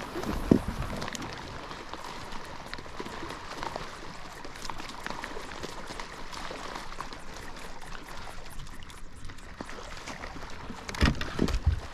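Small waves lapping and splashing against a fishing kayak's hull, with scattered light clicks. A sharp thump about half a second in and a few louder knocks near the end.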